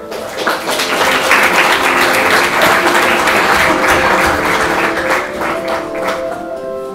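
Audience applauding: dense clapping that builds over the first second and thins out near the end, over background music with held notes.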